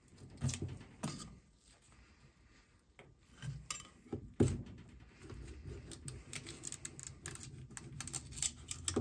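Metal scraper blade scraping and prying a clear resin print and its supports off a resin 3D printer's metal build plate. Irregular scrapes and clicks, with a sharp knock about four and a half seconds in and rapid clicking through the second half.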